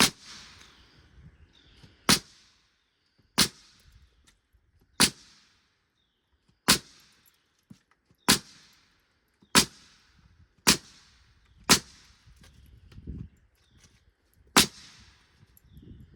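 Framing nail gun firing 3 1/4-inch framing nails into a lumber header, ten sharp shots at uneven intervals of about one to three seconds.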